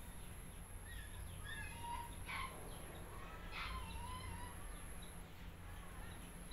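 Faint bird calls outdoors: a few short chirps about two and four seconds in, over a steady high-pitched whine that drops out briefly now and then, and a low background rumble.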